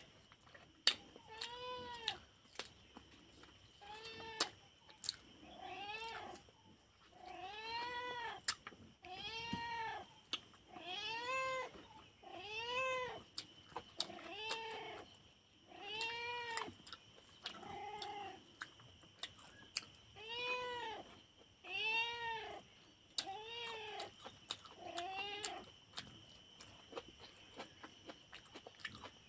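A cat meowing over and over, each meow rising then falling in pitch, about one every second and a half, with a pause near the end.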